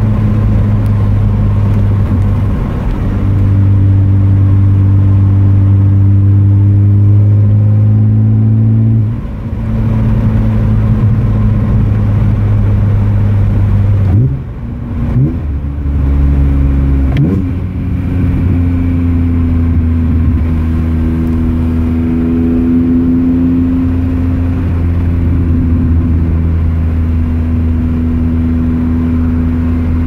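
A BMW S54 3.2-litre inline-six, heard from inside the cabin, pulling steadily at low to middle revs with a deep intake drone. About halfway through, the revs rise and dip sharply through a downshift. After that it holds a steadier, higher engine note near 3,500 rpm.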